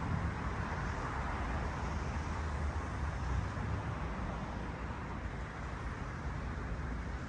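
Steady traffic or vehicle rumble, an even low hum with a wash of road noise and no distinct events.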